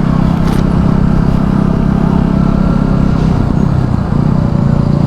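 KTM Duke 200's single-cylinder engine running steadily while riding, with a low rumble of wind on the microphone.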